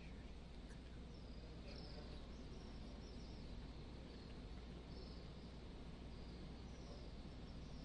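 Faint ambience of a crowded open-air mosque during silent congregational prayer: a steady low hum and hiss, with scattered short, high chirps.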